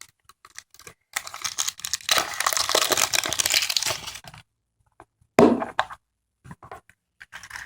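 A surprise egg's wrapper crinkling and being torn open at its serrated edge, with a few seconds of dense crackling and then a sharp loud rip about five seconds in, followed by light handling clicks.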